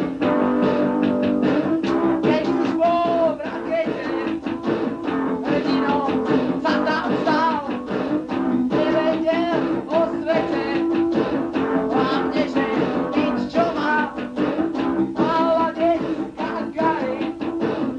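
Punk rock band playing a song with guitar, drums and a singing voice, recorded lo-fi on a dictaphone.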